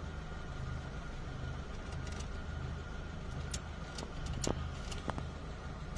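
Vehicle engine running steadily, heard from inside the cab, with a handful of sharp ticks scattered through the second half.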